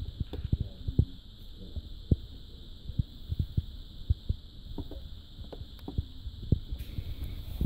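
Irregular low thumps and knocks over a steady high-pitched whine.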